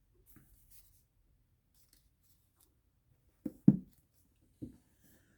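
A quiet pause in a small room, broken by a few short soft clicks: a quick pair about three and a half seconds in and one more about a second later.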